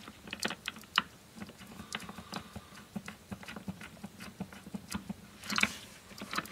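Irregular light clicks and scrapes of a small screwdriver and wires being worked into a screw terminal block, with a brief louder flurry of clicks near the end.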